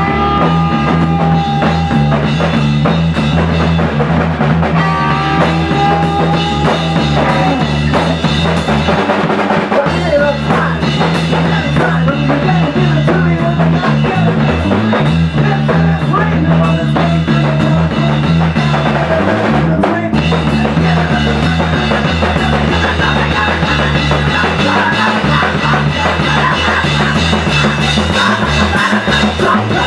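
Rock-style music with drums keeping a steady beat, with a brief break about twenty seconds in.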